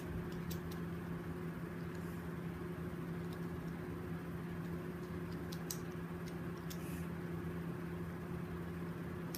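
A steady low hum, like an appliance or fan running, with a few faint clicks of small plastic fidget spinner parts being handled and pressed together, once near the start and again about six to seven seconds in.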